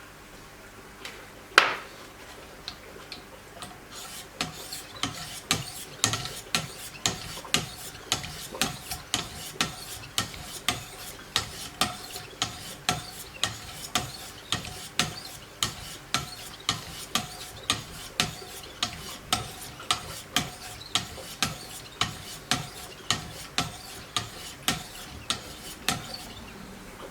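Knife being sharpened on a Wicked Edge guided system: stones stroked along the Giant Mouse K-GMF2 fixed blade in a steady, even rhythm of about three strokes every two seconds, each stroke with a sharp click. A single louder click comes about a second and a half in, before the strokes begin.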